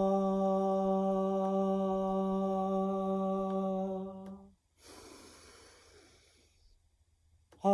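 A long, steady, one-pitch voiced "haaa", the Six Healing Sounds' fire sound for the heart and small intestine, chanted on the out-breath. It stops about four and a half seconds in, a quiet in-breath follows, and the same "haaa" starts again at the very end.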